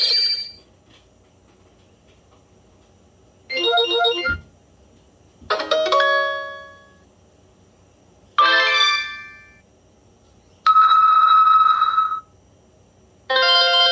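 BlackBerry Pearl 3G phone playing a series of short built-in alert tones one after another: six different brief electronic chimes and jingles, each about a second long, with pauses between. About eleven seconds in, one of them is a steadier single-pitched tone.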